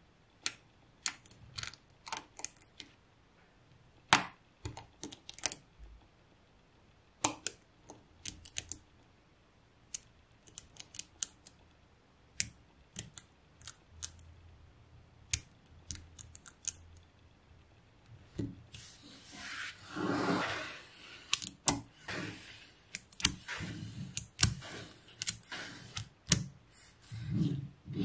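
Small silver neodymium magnet balls clicking as they are snapped one by one onto a growing cluster, in scattered sharp clicks. Around twenty seconds in there is a longer, noisier stretch of the balls rattling and rubbing together.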